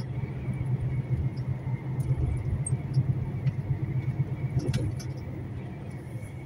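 Truck's engine and road noise: a steady low rumble with a faint steady high whine and a few light clicks and rattles.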